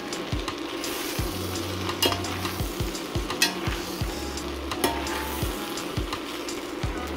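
Stir-fried noodles and vegetables sizzling in a stainless steel pan as they are tossed, with the metal utensils clicking against the pan several times.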